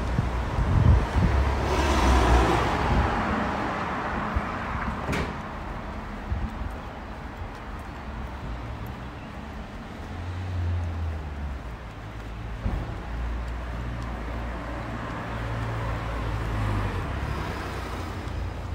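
City street traffic: a car passes, swelling and fading about two seconds in, followed by low engine rumble from road traffic. A single sharp click comes about five seconds in.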